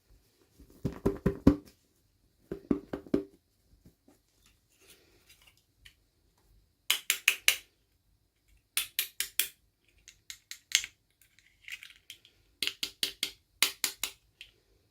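Short runs of three or four quick, sharp clicks and rustles, about six times with pauses between, from hands working the plastic packaging of a miniature doll toy.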